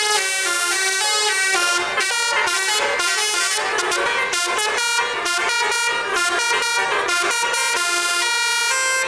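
Indonesian 'telolet' bus air horn playing a quick tune of shifting notes, often several notes at once.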